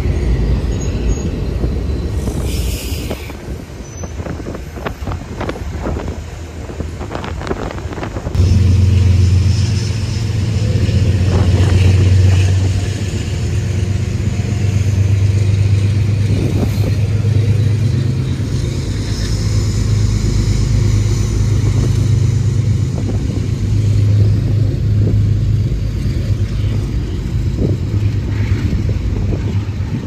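Metro-North M8 electric multiple-unit train running past on the elevated track. Its wheels click sharply over rail joints in the first few seconds, then a loud low hum sets in about eight seconds in and holds as the cars go by, easing near the end.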